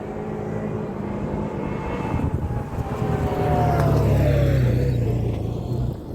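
Can-Am Commander 1000 side-by-side's V-twin engine growing louder as it approaches and passes, its pitch falling as it goes by, loudest about four seconds in.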